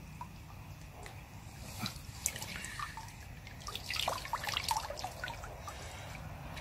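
Water dripping and trickling off a large mirror carp and the wet net as the fish is lifted out of the lake margin, the drips and small splashes coming thickest between about two and five seconds in.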